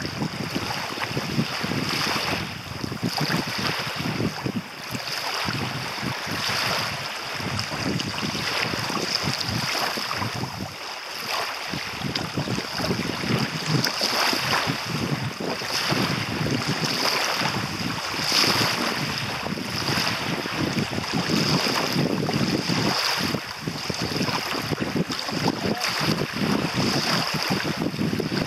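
Small lake waves lapping and washing over a sandy shoreline, with wind buffeting the microphone. A high hiss swells and fades about once a second throughout.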